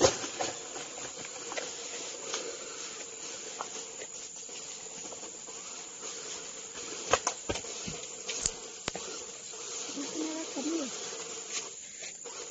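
Small electric motors of radio-controlled 4x4 crawler trucks buzzing as they drive over dirt. A sharp clatter right at the start as a truck tumbles off the tire obstacle, and a few sharp knocks about seven to nine seconds in.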